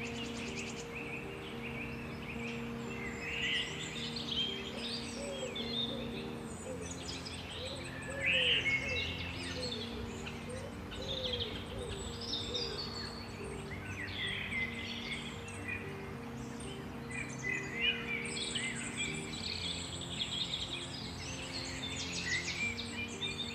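Several songbirds chirping and trilling over soft ambient music that holds low sustained chords.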